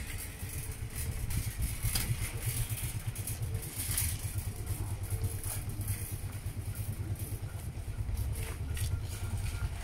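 Motorcycle engine running at low revs, a steady low throb, while the bike is ridden slowly along at walking pace.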